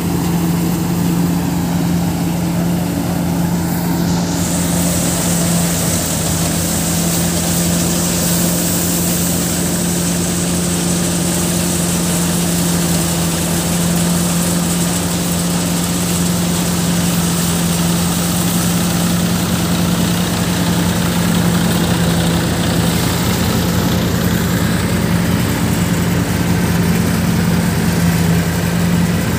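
Massey Ferguson tractor engine running at a steady speed to drive an automatic thresher, its hum holding one even pitch, with the thresher's drum and blower whirring as vines are fed in. A brighter hiss joins about four seconds in.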